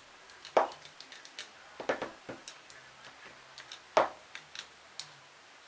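Light clicks and taps of hand tools and small metal parts being handled while a Saito FA-120 model glow engine is taken apart. A few sharper knocks stand out, about half a second in and again about four seconds in.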